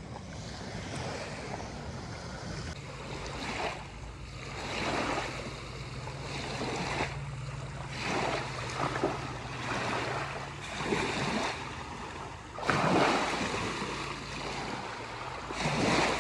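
Water splashing in irregular bursts as a pit bull wades and lunges after fish in shallow river water, over wind noise on the microphone and a steady low hum through the middle stretch.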